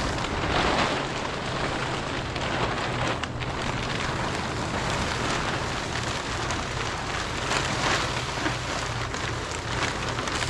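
Water pouring and splashing off plastic sheeting as it is pulled down.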